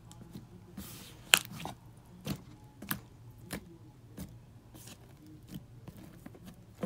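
Homemade styrofoam slime being squeezed and kneaded in the hand, giving scattered sharp clicks and pops at uneven intervals, the loudest about a second and a half in.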